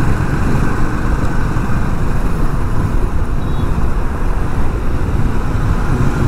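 Motorcycle riding at speed on an open road: steady wind rush buffeting the action camera's microphone, with engine and road rumble beneath.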